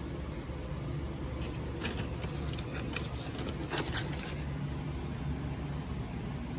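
Handling noise: a cluster of short rustles and clicks from about one and a half to four and a half seconds in, over a steady low background rumble.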